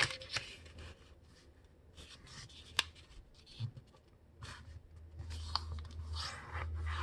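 A sheet of thin copy paper being folded and creased by hand, with scattered light crackles and taps and one sharp snap about three seconds in. Near the end comes a longer rubbing sound as the crease is run down.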